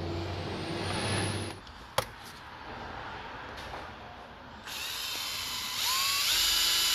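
Electric drill boring a small hole through a plastic car interior trim panel: the drill starts a little past halfway and runs loudly to the end, its motor whine rising in pitch as it speeds up. A single sharp click comes about two seconds in.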